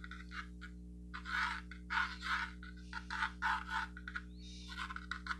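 Pencil scratching on a stretched canvas in short, irregular sketching strokes, over a steady low electrical hum.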